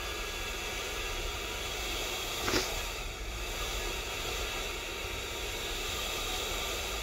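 AVC 12 V DC centrifugal blower fan running at high speed: a steady rush of air with a faint steady whine. A brief tap about two and a half seconds in.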